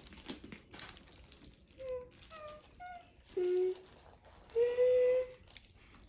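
A high voice making short wordless sounds: several brief notes, then a longer one about five seconds in, over light clicks and rustling from parts being handled.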